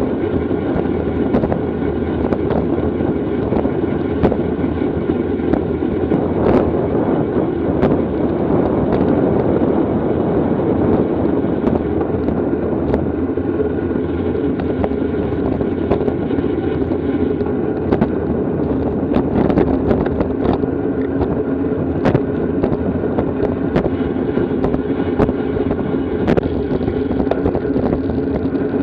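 Wind rushing over the microphone and road noise of a racing bicycle at speed, with scattered sharp clicks and rattles.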